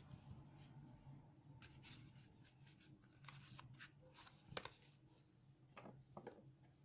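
Faint handling of a small plastic device and its packaging: light rubbing and a scatter of small clicks, the sharpest about halfway through, over a low steady hum.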